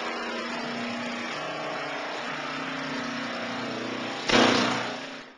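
Pneumatic air hammer of a door skin hemming tool running in a steady rapid buzz as it folds a car door skin lip over. It surges louder about four seconds in, then dies away.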